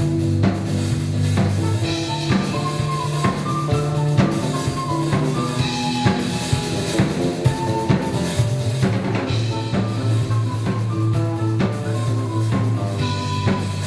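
Live rock band playing: a drum kit keeps a steady beat under sustained bass notes and a melodic line.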